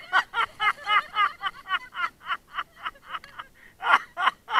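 Laughter: a fast, even run of high-pitched 'ha's, about five a second, with a few louder bursts near the end.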